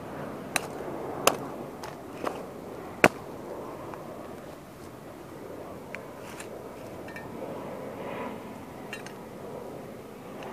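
Sharp cracks and snaps of the broken plastic pieces of a 1:18 model toy car giving way under sneakers on soft dirt: four distinct cracks in the first three seconds, the loudest about three seconds in, then a few faint ticks, over a steady background hiss.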